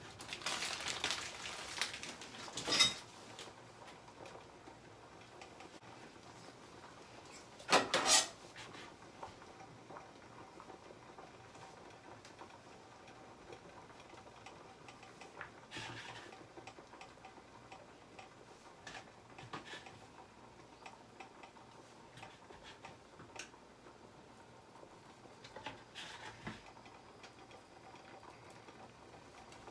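Plastic hot dog packaging crinkling as it is handled and cut open, with two short, louder rustles about eight seconds in. The rest is faint scattered clicks and taps of a knife and hands working over a steel sink.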